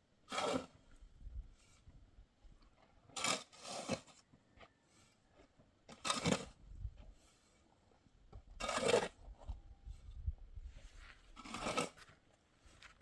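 Rough scraping strokes from hand work, six in all, each about half a second long and spaced two to three seconds apart.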